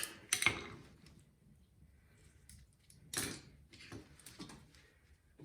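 Quiet handling noises as a rubber fuel line is wiggled off a snowblower's carburetor: a few light knocks and clicks, with one louder, brief scrape about three seconds in.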